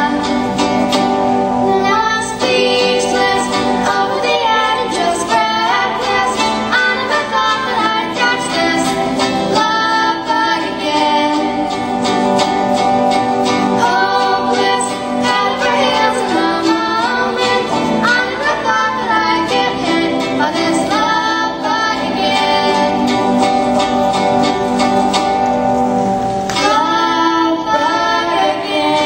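Two girls singing a song together, accompanied by their own electric guitar and a small acoustic string instrument.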